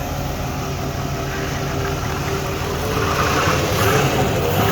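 5.7-litre V8 engine idling steadily while cold, running smoothly with its 5-volt sensor reference circuit restored; it gets slightly louder about three seconds in.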